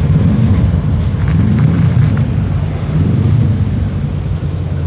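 Audi RS6 C7's twin-turbo 4.0 V8, breathing through decat downpipes and a Milltek exhaust, burbling loud and deep at low revs as the car rolls by, the rumble swelling slightly a few times.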